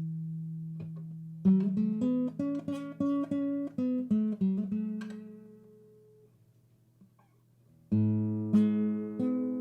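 Background music on acoustic guitar: plucked notes and a run of picked notes that ring out and fade, then a new chord struck near the end.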